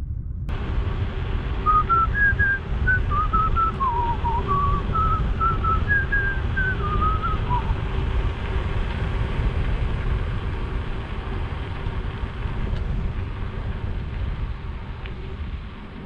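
A man whistling a short tune of a dozen or so quick notes that rise and fall, lasting about six seconds, over steady wind and road rumble from riding a bicycle.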